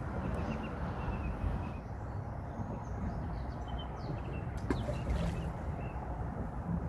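Outdoor riverbank ambience: wind rumbling on the microphone, with small birds chirping faintly on and off. Two short sharp knocks or splashes come close together about two-thirds of the way through.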